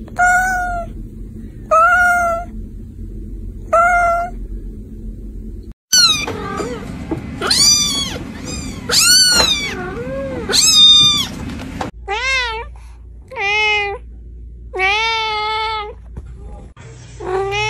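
Cats meowing: three short meows a little under two seconds apart, then a run of longer, louder meows that bend up and down in pitch, then a series of lower-pitched meows.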